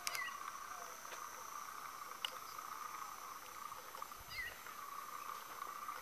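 Evening chorus of caatinga insects, a steady drone at several pitches from many callers at once. Over it come two short falling whistled calls, one at the very start and one about four seconds in, and a single sharp click a little after two seconds.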